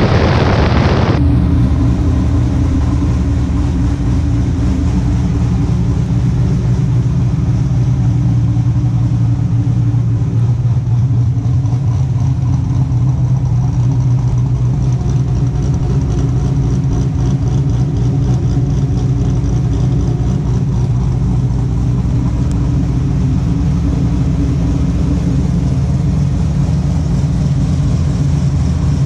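Chevrolet Camaro Z28's V8 engine idling steadily at the exhaust. About a second in, a loud rush of wind and road noise from the moving car cuts off abruptly.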